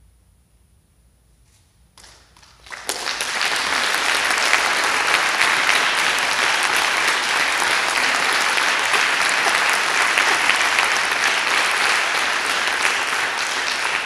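Audience applause for a choir: a short hush, then a few scattered claps about two seconds in that swell within a second into full, steady clapping.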